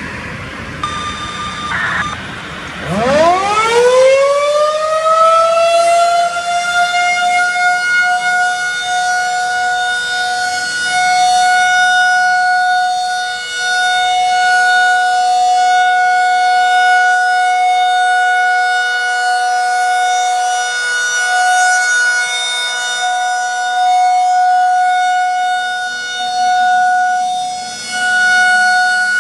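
A Federal Signal 2001-SRN outdoor warning siren winds up from low to a steady wail on a full-alert test, rising sharply about three seconds in and levelling off a few seconds later. Its loudness then swells and dips unevenly as the rotating siren, which wobbles badly on its pole, sweeps around. Brief short tones come before the wind-up.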